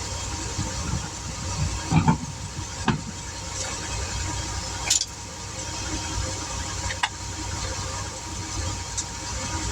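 Steady low rumble of a vehicle engine running, with a handful of sharp metal clicks and knocks as the patched wheel is put back on.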